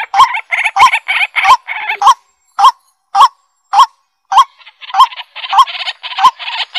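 Honking bird calls repeating evenly, about three every two seconds. A rasping buzz fills the gaps between them at the start and again in the last couple of seconds.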